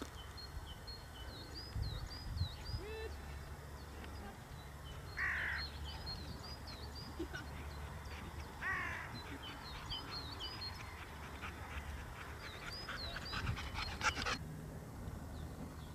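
Birds calling in open country: small birds chirping in quick repeated high notes, with two louder harsh calls about five and nine seconds in, over a faint low rumble. A quick run of clicks comes near the end, and then the sound cuts off.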